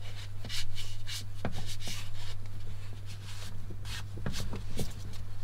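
Handling noise as heat-shrink tubing is slid over a crimped joint in heavy battery cable: a run of rustles, rubs and small scrapes, over a steady low hum.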